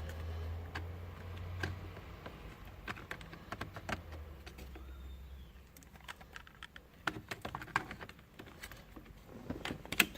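Scattered small plastic clicks and rattles of a clock spring and its wire plugs being fitted onto a steering column by hand. The clicks come thicker in the second half. A low steady hum under the first half fades out about halfway.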